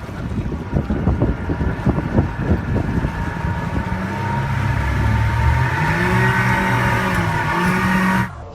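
A motor vehicle's engine revving, its pitch rising and falling, after a stretch of knocks and rattles. The sound cuts off abruptly near the end.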